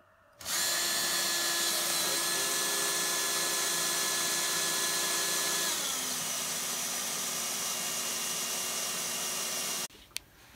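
Cordless drill motor running in one steady whine for about nine seconds, settling to a lower pitch about six seconds in and cutting off abruptly near the end.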